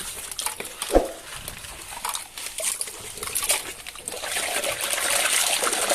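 Hands rummaging through and handling plastic toy vehicles: scattered small clicks and rustling, a short squeak about a second in, and a denser hissing rustle in the second half.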